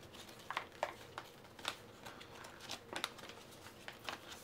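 Paper play mat being unfolded: faint, irregular crackles and rustles of stiff paper.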